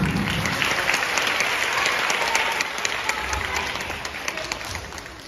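Audience applauding at the end of a cheerleading routine, the clapping dying away over the last couple of seconds.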